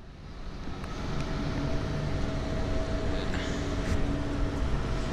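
Rooftop air-handling and cooling machinery running with a steady drone and a held hum, fading in over the first couple of seconds, with a few light clicks.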